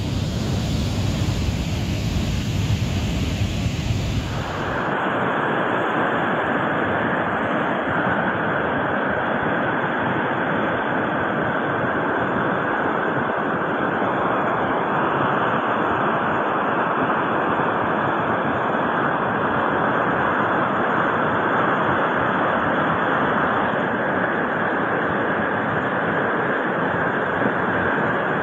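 Steady rush of a swollen, muddy river in flood. It carries a heavier low rumble for the first five seconds, then after a cut becomes an even, brighter rush of fast water.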